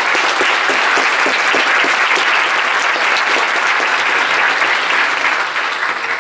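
An audience applauding, a dense, steady round of clapping that eases slightly near the end.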